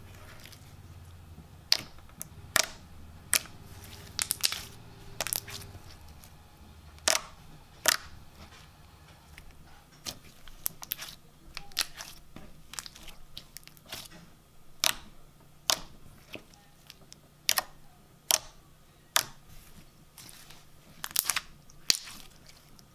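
Thick white glue-base slime packed with crunchy black sand-like bits, pressed and squeezed by hand: irregular short, sharp crunchy clicks and pops, roughly one a second.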